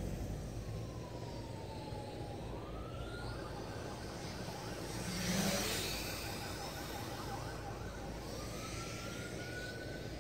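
MJX X600 hexacopter's motors whining, the pitch falling and rising with throttle, over a steady hiss. The sound swells louder for a moment about halfway through.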